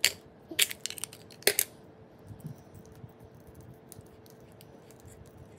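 Gold-tone metal bangle bracelet and its dangling charm clinking in the hands as it is handled for measuring: a sharp click right at the start, a quick run of clicks about half a second to a second in, and another about a second and a half in, then only faint handling.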